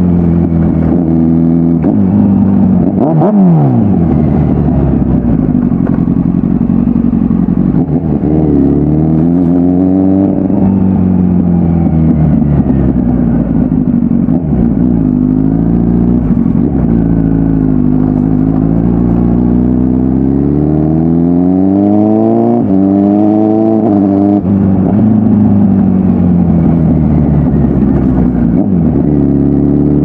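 2009 Kawasaki ZX-10R 1000cc inline-four, remapped and on a full aftermarket exhaust, pulling hard with its pitch repeatedly climbing and falling as the throttle is opened and eased. A few sudden drops in pitch mark gear changes.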